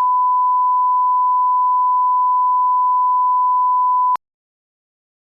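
A continuous electronic beep: one pure, steady tone held at constant pitch and loudness, which cuts off suddenly about four seconds in, leaving dead silence.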